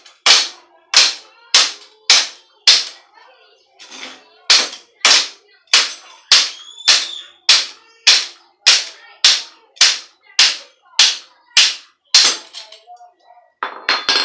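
Steel hammer blows on a bicycle's fork and headset, about two a second, each with a short metallic ring. There is a brief pause partway through, and two last strikes near the end. The fork is being knocked loose to come out of the head tube.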